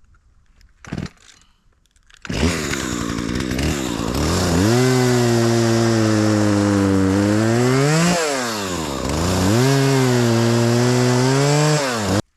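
Two-stroke chainsaw bucking a burnt tree into firewood: it revs up about two seconds in and runs steadily under load, its pitch climbs sharply and drops once midway, then it revs back up and runs until it cuts off suddenly near the end.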